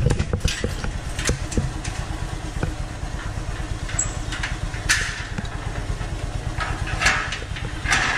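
Motor scooter engine idling steadily, with a series of sharp metallic clanks and rattles as a metal slatted gate is pushed open.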